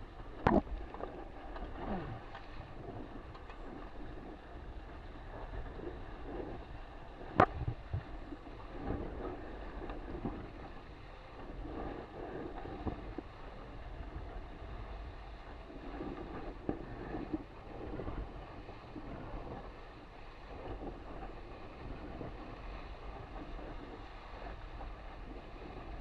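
Water rushing and splashing along the hull of an RS600FF sailing dinghy as it sails at speed through choppy water, with wind rumbling on the microphone. A sharp knock comes about half a second in, and a louder one about seven seconds in.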